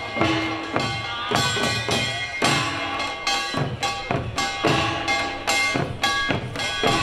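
Korean pungmul percussion music: drums struck in a fast, driving rhythm, with ringing tones held over the strokes.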